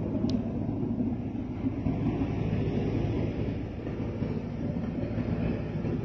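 Caterpillar D6R bulldozer's diesel engine running, a steady low rumble that eases slightly toward the end. A brief high chirp sounds just after the start.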